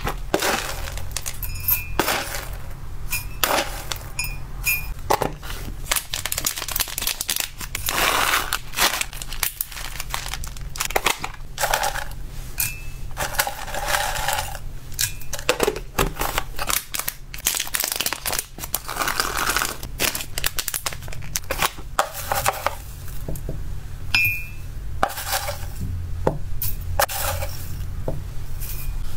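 Dry hamster snacks (dried fruit and vegetable chips, a dried herb and flower mix) rustling as they are scooped out of plastic storage containers and poured into a glass jug. Plastic lids click and the scoop clinks against glass and plastic.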